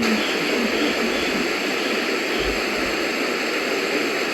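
Steady hiss of radio static from a broadcast receiver, with no voice over it.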